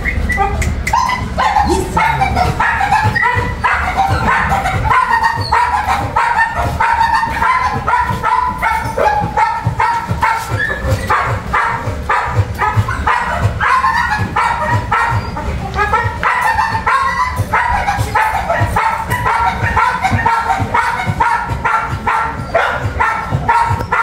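Pit bull puppies yipping and whining, in many short high calls one after another.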